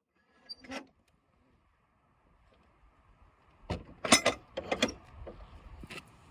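A field gate being shut: a short creak under a second in, then a quick cluster of sharp latch clanks about four seconds in, and one more near the end.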